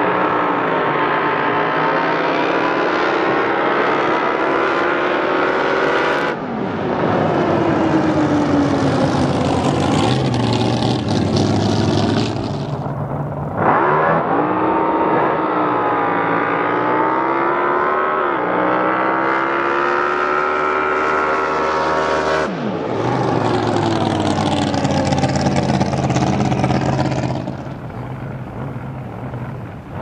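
Drag boats' racing engines running at full throttle on their runs, their engine note sweeping down and up as each boat passes. Several runs follow one another, each breaking off abruptly into the next.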